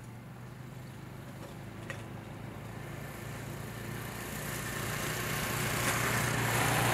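Small motorcycle engines running as the riders move off, under a rushing hiss that grows steadily louder toward the end.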